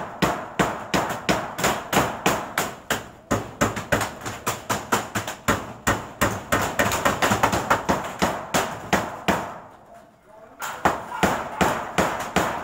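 Hammering: rapid, repeated hammer blows, about three or four a second, pausing briefly about ten seconds in before starting again.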